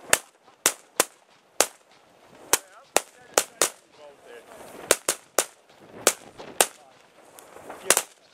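Firecrackers exploding: an irregular run of about fifteen sharp, loud bangs, some close together and some a second or so apart.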